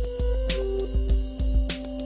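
Background music with a steady beat: held synth or keyboard notes and a deep bass under regular drum hits about twice a second.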